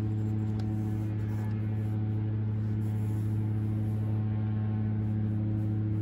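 Steady low background hum with a stack of even overtones, constant in pitch and level.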